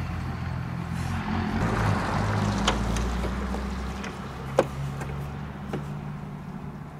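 Steady low rumble with a rushing noise that swells and fades, and a few light clicks as the wiper arm at the cowl is handled. The deepest part of the rumble drops away about four seconds in.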